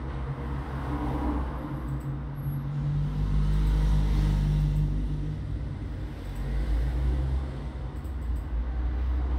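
Steady low droning rumble of a running engine, swelling louder a few seconds in.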